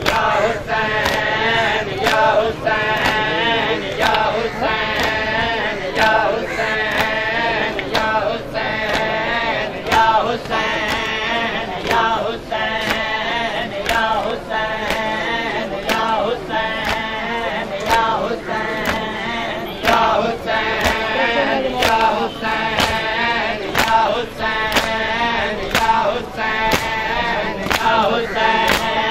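Mourners performing matam: a group of men chanting a lament together in chorus, over sharp chest-beating slaps struck in unison at a steady beat.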